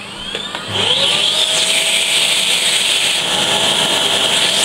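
Vacuum cleaner motor spinning up with a rising whine in the first second, then running steadily with a loud rushing hiss as its hose is held to a laptop's cooling vent to suck out the dust.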